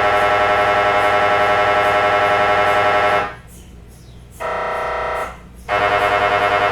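MRI scanner's gradient coils buzzing loudly during a scan sequence, a harsh many-toned drone pulsing several times a second. About halfway through it stops, a shorter, lower and steadier tone sounds for about a second, and then the pulsing buzz starts again.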